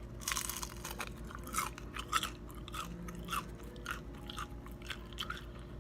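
A person chewing a mouthful of fried food, with irregular wet mouth clicks and smacks.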